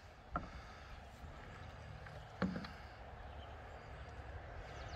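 Faint lakeside ambience: a steady low rumble with light hiss, broken by two soft knocks, the second, about two and a half seconds in, louder with a dull thud.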